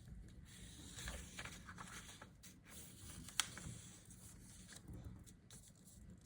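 A square sheet of paper being folded and pressed into a crease, with soft rustling and scraping strokes and one sharp tick a little past halfway.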